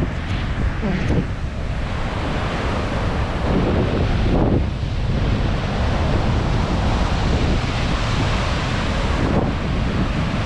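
Wind buffeting the microphone over the steady wash of sea surf and heavy rain.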